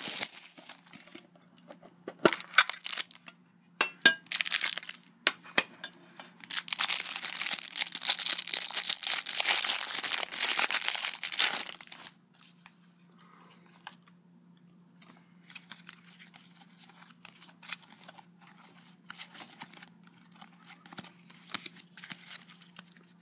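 Plastic cellophane wrapping on a metal trading-card tin being torn and crumpled in several crinkly bursts, the longest lasting about five seconds and stopping sharply near halfway. After that come only faint light ticks and rustles as the tin and cards are handled.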